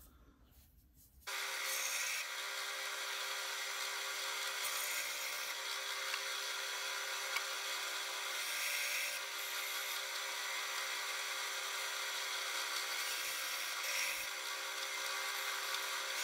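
Bandsaw cutting through a block of pink ivory wood: a steady hum with the hiss of the blade in the wood, starting abruptly about a second in.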